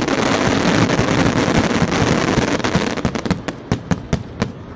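Fireworks barrage: a dense, continuous crackle of many overlapping bangs that thins out about three seconds in to a quick string of separate sharp bangs.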